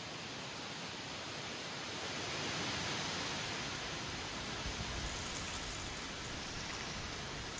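Wind moving through the autumn trees, a steady rustling hiss of leaves that swells about two seconds in and eases off again, with a brief low rumble about five seconds in.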